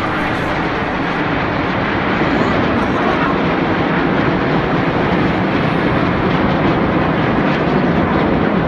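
Aerobatic jets flying overhead: loud, steady jet-engine noise that swells slightly a couple of seconds in.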